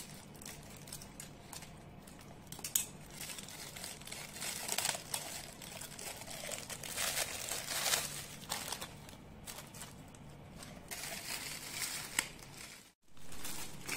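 Thin clear plastic packaging crinkling and rustling in irregular bursts as small toy bags are handled, cut and pulled open.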